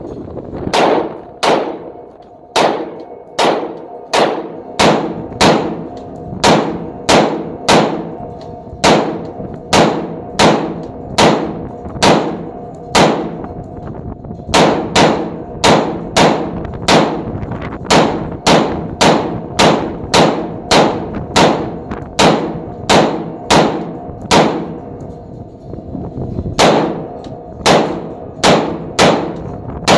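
Diamondback 5.56 AR pistol fired semi-automatically: a long string of single shots at a steady pace of roughly one every three-quarters of a second, broken by a few short pauses. The trigger is faulty and does not reset on its own between shots.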